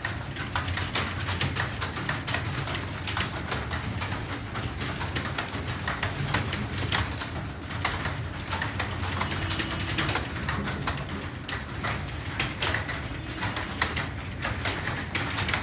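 Fast typing on an Acer computer keyboard: a continuous run of key clicks, several a second, over a steady low hum.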